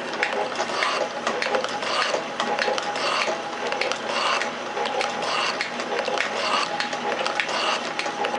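Metal shaper running, its ram stroking back and forth about once a second as the tool machines a steel C-channel workpiece, with mechanical clattering and clicking on every stroke.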